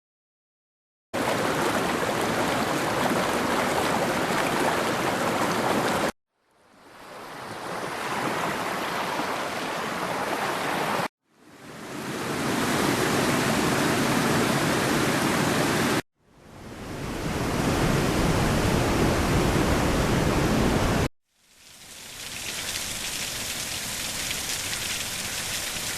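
White noise and similar steady hiss played as five clips of about five seconds each, every clip cut off abruptly. The first begins suddenly and is an even full hiss. The next ones fade in and sound deeper, with the fourth the deepest. The last is thin and high.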